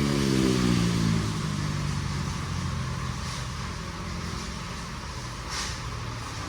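A motor vehicle passing by, its engine pitch falling as it goes past, loudest about half a second in, then fading to a lower drone.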